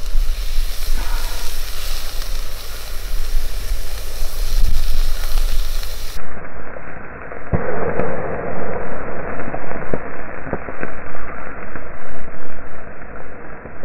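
Rump steaks sizzling over a wood fire, with fat spitting and crackling. About six seconds in the sound turns duller, with many sharp pops.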